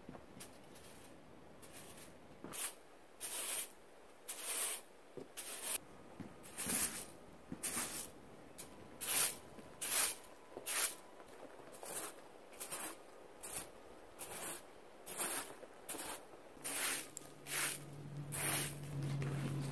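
A broom sweeping bare, partly frozen ground in short brisk swishes, one after another at a little under two strokes a second. Near the end a low steady hum sets in under the strokes.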